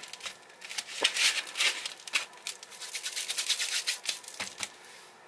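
Hands pressing and rubbing coarse seasoning into raw steaks on a meat tray: a run of short, scratchy rustling strokes that die down about four and a half seconds in.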